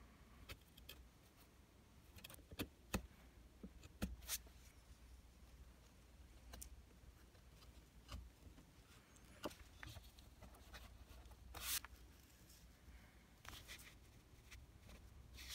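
Faint, irregular ticks and short scrapes of a small steel chisel working at a chipped veneer edge of a wooden tabletop, over a low steady hum of room tone.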